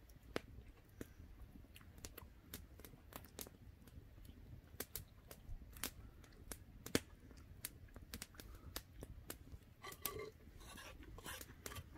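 Small wood campfire crackling faintly with irregular sharp pops, and a brief rustle about ten seconds in.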